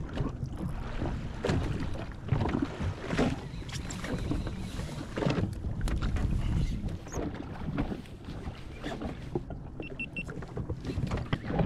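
Jet ski sitting on the open ocean: a steady low rumble with irregular knocks and slaps of water against the hull as the rider moves about and handles his fishing rod.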